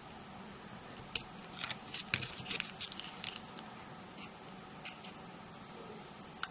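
Scattered light clicks and rustles of small card and magnet pieces being handled on a craft table, mostly in the first half.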